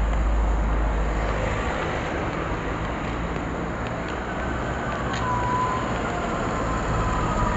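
Steady rushing outdoor noise, with a faint thin whine gliding slightly downward in the second half.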